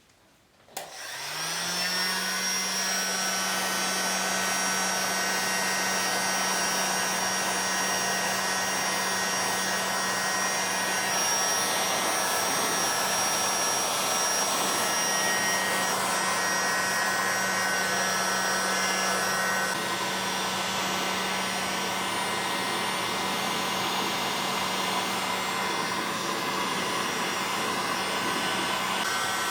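A small electric motor spins up about a second in, rising in pitch, then runs steadily with a constant hum and an even hiss.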